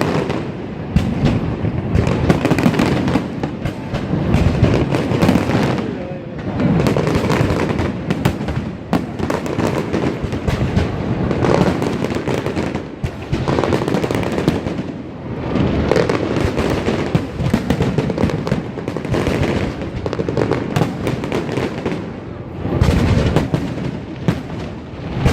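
Fireworks display: a continuous run of bangs and crackling bursts, swelling and easing every couple of seconds.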